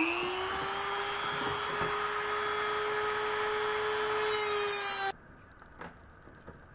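Dremel rotary tool with a cut-off wheel running at speed, a steady high whine, then a louder gritty hiss as the wheel cuts into a metal L bracket. The sound stops abruptly about five seconds in, followed by a faint click.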